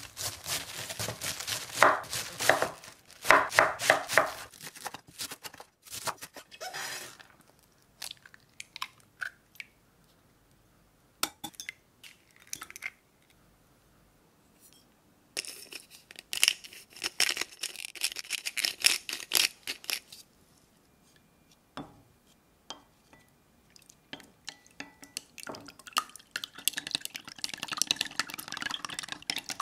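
A kitchen knife cutting through cabbage on a wooden chopping board: crisp, crunchy strokes in quick succession. After a lull, a few sharp single cracks and taps, then chopsticks beating eggs in a glass measuring jug, a long run of rapid clicks against the glass.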